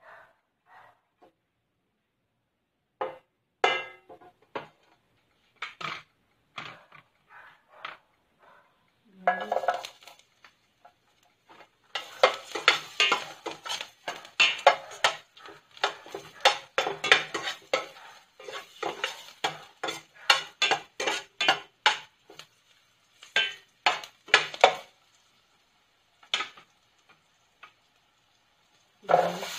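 A metal spoon clinking and scraping against a stainless steel frying pan: scattered taps at first, then a quick run of clinks for about ten seconds in the middle, and a few more later. Frying sizzle starts right at the end.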